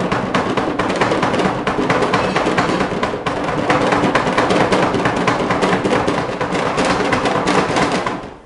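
A wooden tray of metal chocolate molds shaken hard on a granite counter, the tins rattling and knocking against the wood in a dense, continuous clatter that cuts off suddenly near the end. The shaking settles and levels the grainy, unconched chocolate paste in the molds.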